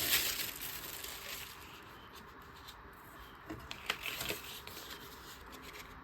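Thin deli-paper prints rustling and crinkling as they are handled, loudest in the first second or so, then fainter handling with a few light clicks.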